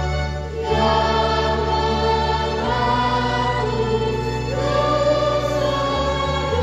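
Choir singing with electronic keyboard accompaniment. The keyboard holds deep bass notes for one to three seconds at a time, changing chord three times.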